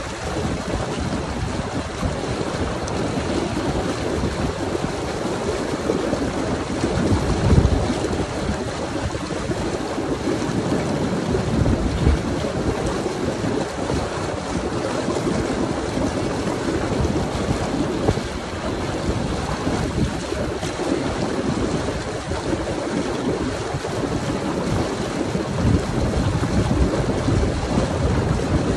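Hot tub jets churning and splashing the water steadily, close to the microphone, with wind buffeting the microphone.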